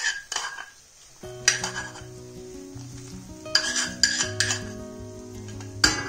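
A metal spoon scraping and knocking against a small non-stick pan several times as ghee-fried almonds and pistachios are tipped out onto halwa, with a light sizzle of hot ghee. Soft background music comes in about a second in.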